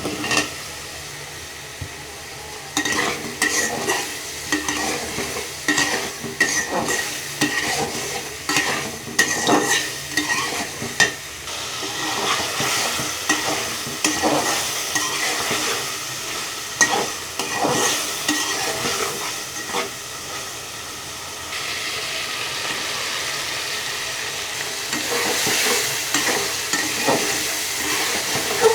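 Food frying in a pan, sizzling, while a spatula stirs it with repeated irregular scrapes and clinks against the pan. The sizzle grows louder about two thirds of the way through.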